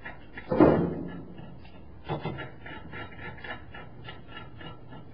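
Metal hardware and a hand wrench clicking and clinking as a bolt is fitted and run in through a suspension bracket at a pickup truck's rear leaf-spring shackle, with one louder clank about half a second in and light, fairly regular clicks of about three to four a second after it.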